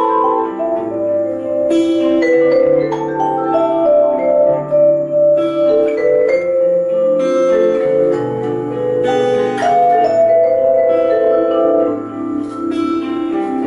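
Instrumental passage of a live acoustic duo: a vibraphone played with mallets, its notes ringing on in a melody, over an acoustic guitar's chords.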